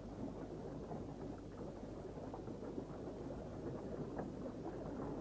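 Water bubbling and gurgling under thawing ice, a low, dense crackle with small ticks scattered through it.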